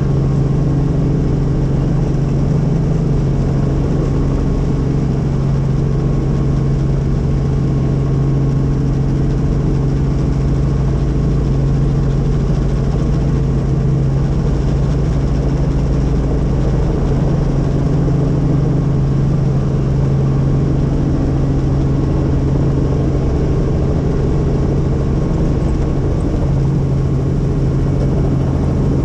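Helicopter running steadily, its engine and rotors giving a loud, even hum with a strong low drone.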